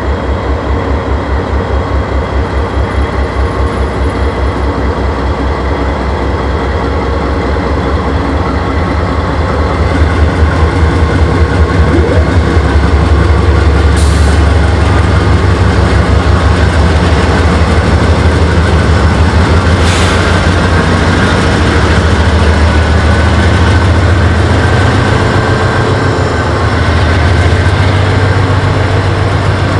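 GE AC4400CWM diesel-electric locomotive's 16-cylinder engine throttling up as it passes, a deep pulsing exhaust that grows louder about ten seconds in and then works hard and steady. Two short sharp clicks come through partway along.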